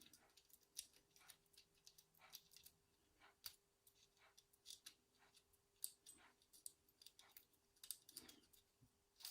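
Faint, irregular small clicks and taps of pliers and a circlip being worked onto a euro lock cylinder.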